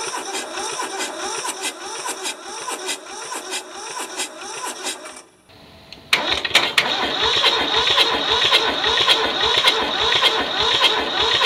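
Electric starter cranking the two-cylinder Toyosha S88 diesel of a Hinomoto compact tractor, the engine turning over in a rhythmic chug without catching. It breaks off about five seconds in and resumes louder a moment later. The owner reports one cylinder with weak compression, the other with none, and no diesel getting through yet.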